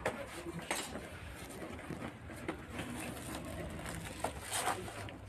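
A cardboard box being cut along its packing tape and pulled open by hand: a string of sharp scrapes, clicks and rips of tape and cardboard, over a low steady hum.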